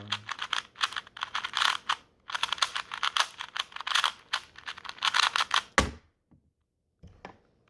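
A KungFu 2x2 speedcube being turned fast by hand, its layers clicking in quick runs with a short break about two seconds in. A single sharper knock comes near the end, followed by only a few faint clicks.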